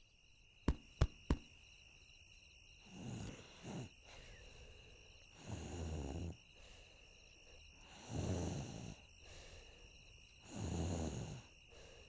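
A child imitating snoring as foley for a sleeping cartoon character: four slow, breathy snores about two and a half seconds apart. Three quick clicks come about a second in.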